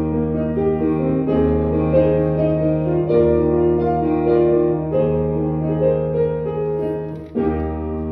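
Background keyboard music with a piano-like melody moving over held bass notes. It dips briefly about seven seconds in and starts again.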